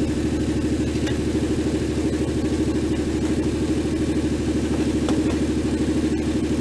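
A superbuggy's Hošek V6 engine idling steadily at about 1,500 rpm with the car at a standstill. A few faint clicks sound over it.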